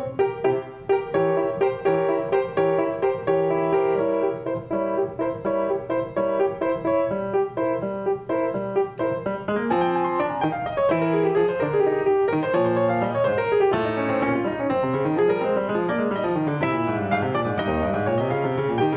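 Piano playing: repeated notes and chords at first, then rising and falling runs from about halfway through.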